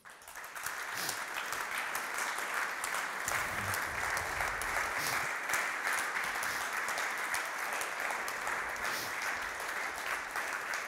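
Audience applauding steadily, a dense patter of many hands clapping, which rises within the first half second and holds even throughout.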